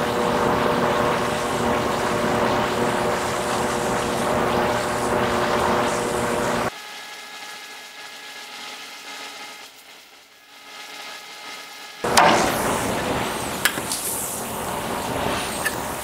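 Motor-driven bead roller running steadily as a sheet-steel patch panel is fed through its rolls to press in a bead. It stops abruptly about seven seconds in, leaving only a faint background hum, then starts running again about twelve seconds in with a few sharp clicks.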